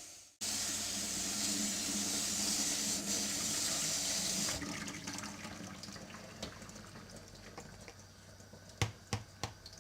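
Tap water running over freshly picked hollyhock flowers as they are rinsed clean. It starts a moment in and stops about halfway through, leaving quieter dripping and a few sharp clicks near the end.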